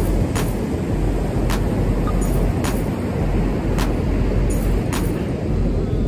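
Wind buffeting the microphone in a heavy, fluctuating low rumble over ocean surf, with sharp clicks about once a second.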